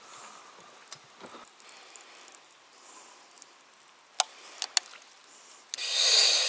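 Quiet lakeside background with a few light clicks, then a short, loud splash and swirl of water near the end as a hand reaches into the lake.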